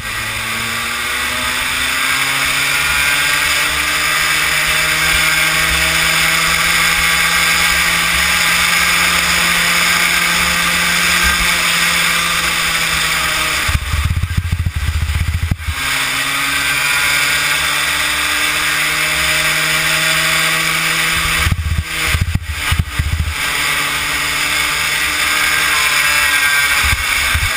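Kid kart's small two-stroke engine at racing speed, heard from on board. Its pitch climbs as the kart accelerates and holds steady down the straight. About halfway it drops away briefly as the throttle comes off for a corner, then climbs again.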